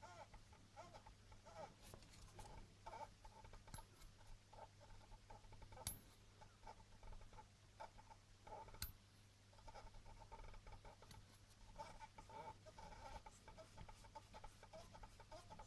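A car engine's coolant water pump squeaking: faint, repeated short squeaks over a low steady hum. Two sharp clicks come at about six and nine seconds.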